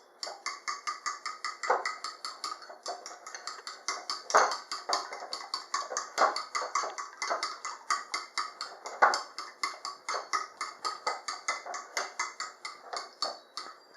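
A fork whisking eggs and milk in a bowl, clicking against the bowl's side in a fast, steady rhythm of about five strokes a second.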